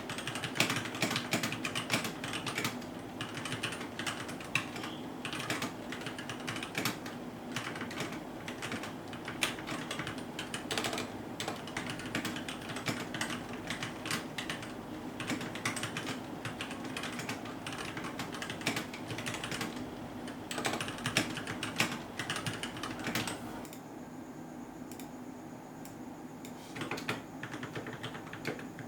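Continuous typing on a Keychron K6 mechanical keyboard with stock, unlubed Gateron Red linear switches: a rapid, irregular clatter of keystrokes. About 24 seconds in it breaks off for a few seconds, with a faint steady high tone. Then typing resumes on the same keyboard, its switches now lubed with 205g0 and fitted with switch films.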